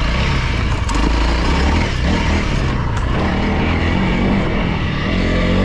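2022 Honda CRF300L's single-cylinder four-stroke engine running under power as the bike rides along a gravel trail, with a couple of brief sharp ticks.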